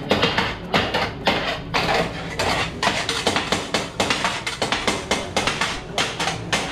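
Kottu roti being chopped on a flat metal griddle with two metal blades: rapid, rhythmic metallic clanging, several strikes a second.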